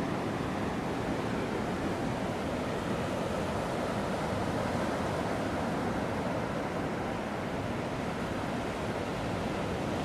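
Atlantic surf washing steadily onto the beach, a continuous wash of breaking waves with a little wind.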